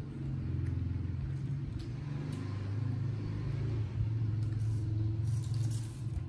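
A low, steady engine rumble that swells in at the start and drops away just before the end, with a few faint clicks and a short rustle near the end.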